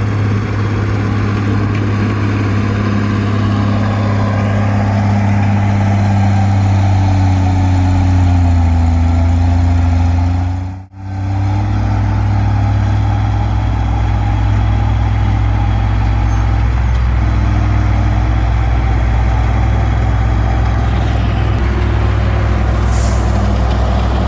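Komatsu D20P bulldozer's diesel engine running steadily under working load, with a slight shift in pitch before the sound cuts out for a moment about halfway through.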